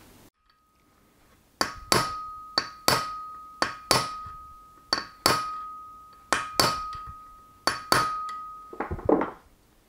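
Small hammer tapping a metal drift to drive a brass barbed spigot into its hole in a gear motor's flange: about fourteen light taps, often in pairs, with a steady metallic ring that carries between them. A duller knock comes near the end.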